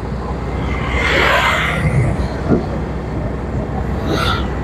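Roadside traffic ambience: a steady low rumble, with a swell of passing-vehicle noise about a second in.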